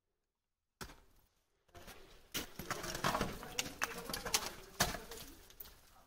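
Ice-climbing tools striking and scraping ice: a run of sharp knocks starting about a second in, with a low wavering hum underneath in the middle.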